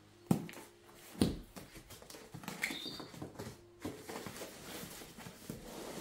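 Cardboard shipping boxes and packaging handled on a tabletop: two sharp knocks as boxes are set down, then a few seconds of rustling and scraping of cardboard and plastic wrapping.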